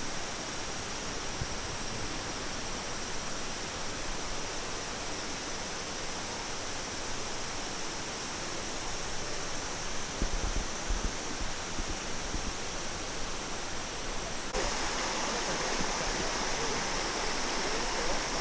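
Steady rush of flowing water in a wooded gorge: an even, unbroken noise. A few low rumbles come through about ten seconds in, and the sound shifts slightly in tone about fourteen seconds in.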